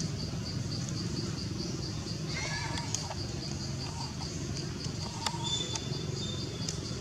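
An insect chirping steadily in a high even pulse, about four pulses a second, over a low outdoor rumble, with a short high call a little over two seconds in and a few thin whistles later.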